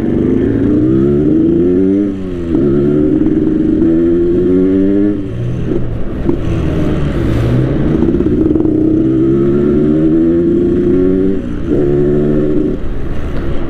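Yamaha RX-King two-stroke single-cylinder motorcycle engine set up for the rough 'ngorok' (snoring) note with a rich carburettor setting, pulling under way. The revs climb and drop back several times.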